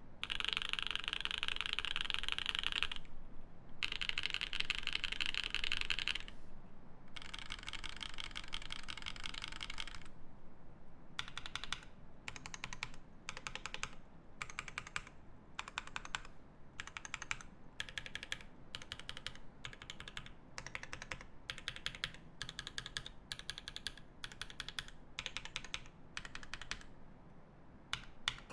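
Typing on a Kyuu mechanical keyboard with lubed Creampaca linear switches on an aluminium plate and GMK keycaps. Fast continuous typing in three runs with short pauses over the first ten seconds, then slower, evenly spaced keystrokes.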